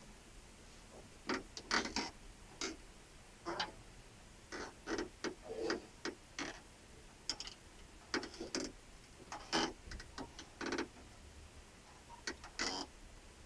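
Quiet, irregular light clicks and taps from drumsticks and drum-kit hardware being handled.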